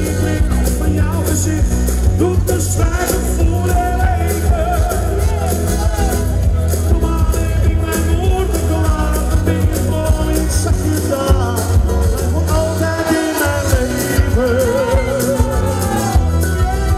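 Live pop music played loud over a PA system: a singer's voice, wavering and gliding with vibrato, over a steady pounding bass beat.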